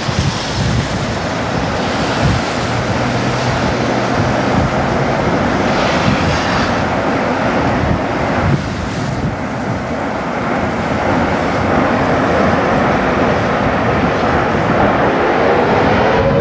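Loud, steady roar of strong tornado winds, with wind rushing over the microphone, slowly growing louder.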